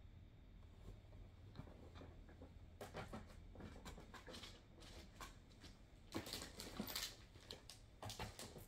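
Faint rustling and light clicks of things being handled and shifted, picking up about three seconds in, with the busiest stretch of scrapes and clicks in the second half.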